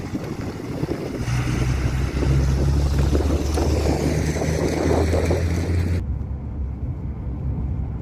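Strong wind buffeting a phone microphone with a deep, steady rumble. About six seconds in it cuts abruptly to a duller, quieter rumble.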